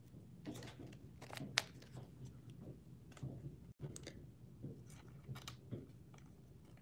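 Trading cards and clear plastic card sleeves being handled: faint scattered clicks and soft rustles as a card is slid into a sleeve.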